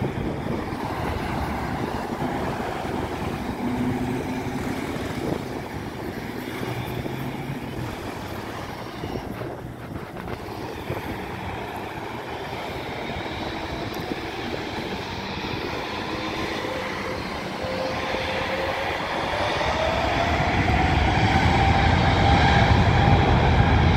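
Boeing 777's twin turbofan engines spooling up for takeoff: a steady jet noise that turns, in the last third, into a whine rising in pitch while a low rumble grows louder toward the end.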